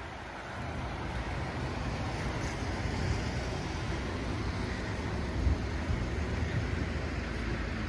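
Road traffic: a motor vehicle running close by, a steady low rumble that grows a little louder over the first few seconds.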